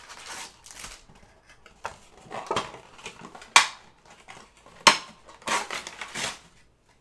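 A trading-card blaster box and its card packs being torn open and handled: crinkling, rustling and tearing, with two sharp snaps around the middle.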